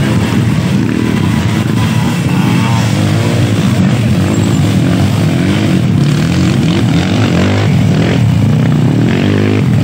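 Several dirt bike engines revving and running under load on a steep dirt hill climb, their pitches overlapping and rising and falling as the riders work the throttle.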